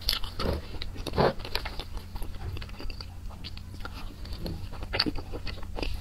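Close-up eating sounds of someone chewing soft layered cream cake with sauce: wet mouth clicks and smacks at an uneven pace, with a louder noise about a second in. A low steady hum runs underneath.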